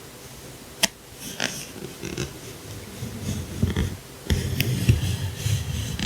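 Unboxing handling noises: a sharp click about a second in, then crinkling and rubbing of packaging that grows louder and continuous from about four seconds in.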